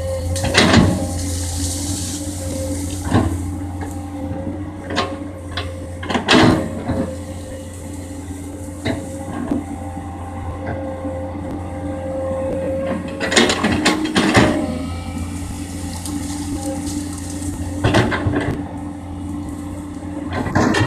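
Komatsu PC200 excavator's diesel engine running steadily with a held whine, broken by repeated sharp clanks and knocks as it works, the loudest about six seconds in and again around thirteen to fourteen seconds in.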